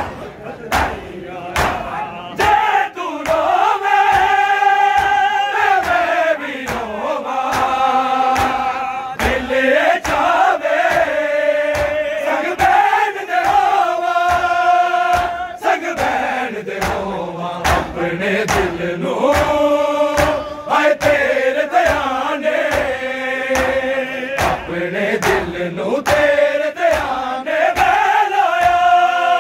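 Male voices chanting a noha lament in long, drawn-out held notes that rise and fall, with no clear words. A steady beat of sharp slaps runs under it, typical of mourners' chest-beating (matam) keeping time.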